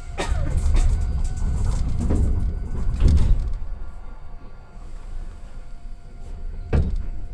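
Iyo Railway train's sliding doors shutting with a sharp knock just after the start, followed by a low rumble for a few seconds. A second knock comes near the end.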